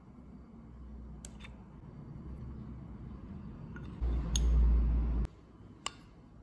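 A spoon scattering chopped green onions onto a bagel, with a few light clicks and taps. About four seconds in, a loud low rumble lasts about a second and stops suddenly.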